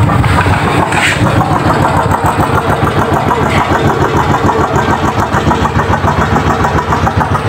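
Small boat engine idling steadily, with a fast, even pulse.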